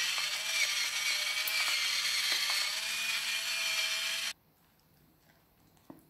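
Battery-powered electric pepper grinder grinding black peppercorns: a steady motor whine that cuts off abruptly about four seconds in, followed by a faint click near the end.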